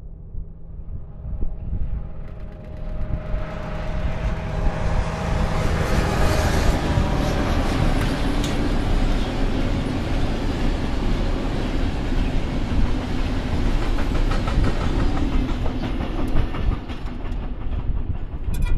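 SNCF BB 64600-class diesel locomotive hauling a ballast train past. Its engine tones grow over the first few seconds, then the passing train's rumble holds steady.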